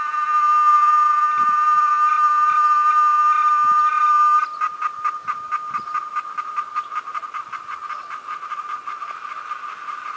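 Cicada singing: a loud, steady high-pitched buzz that, about four and a half seconds in, breaks into a fast, even pulsing which slowly fades.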